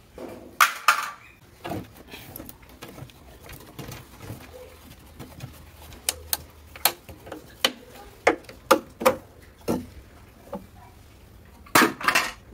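Rusted sheet steel of a Vespa PX150 chassis floor being pulled and broken away by hand: scattered sharp clinks, knocks and crackles of brittle, corroded metal, loudest just after the start and again near the end.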